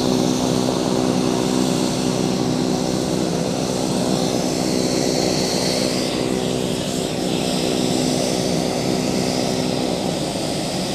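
Boeing B-17 Flying Fortress's Wright R-1820 radial piston engines running steadily, a continuous even propeller drone.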